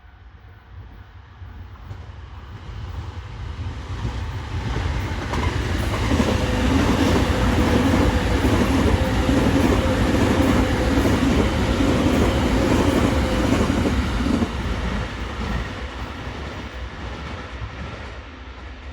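An electric commuter train passing on the line, wheels clattering over the rail joints. It grows louder over the first several seconds, stays at its loudest for about eight seconds with a steady hum, then fades away.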